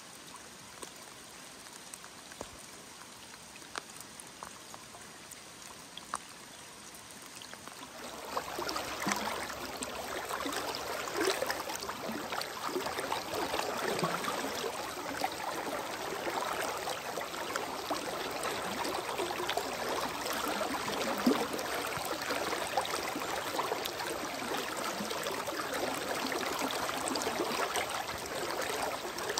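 Flowing water of a small river running high: a softer rush with a few faint ticks at first, then much louder and fuller from about eight seconds in.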